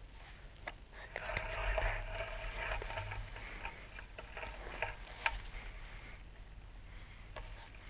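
Close handling noise: soft rustling and scattered small clicks and ticks, with a stretch of breathy hiss about a second in and one sharper click a little after five seconds.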